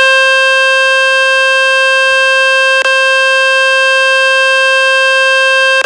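A loud, steady, buzzy tone from a speaker-cleaning web page, playing on a Samsung Galaxy S25 Ultra. It is meant to shake water and dust out of the phone's loudspeaker. The tone drops out for an instant twice, about three seconds in and near the end.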